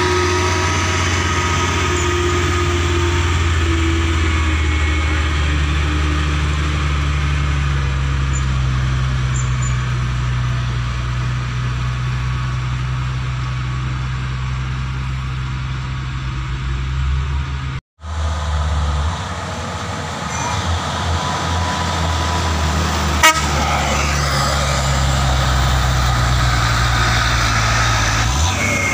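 Heavy diesel trucks grinding slowly up a steep grade under load, their engines running with a steady low note. The sound drops out briefly about two-thirds of the way through, then a truck's diesel is heard again close by, with a single sharp click a few seconds later.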